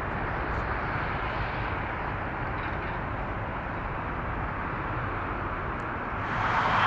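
Jet engines of a Boeing 777 taxiing past at idle thrust: a steady rushing hum. About six seconds in, the sound shifts and gets louder.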